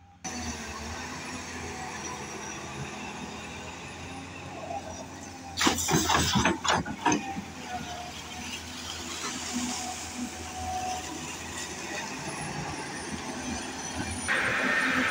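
Hydraulic excavator's diesel engine running while its bucket digs wet mud and water, with a cluster of loud knocks and splashes about six seconds in.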